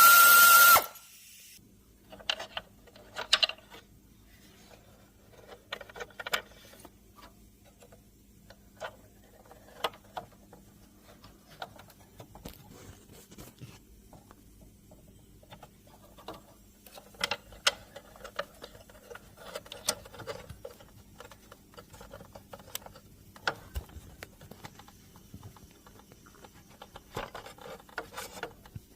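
Irregular light clicks, taps and clinks of hand tools and metal parts being handled, some in quick clusters. It opens with a loud steady high-pitched whine and hiss that cuts off abruptly within the first second.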